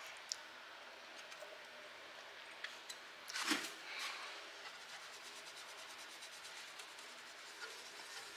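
Faint hand-handling of desktop PC parts: scattered light clicks and one short rubbing scrape about three and a half seconds in, as the removed CPU cooler is set down.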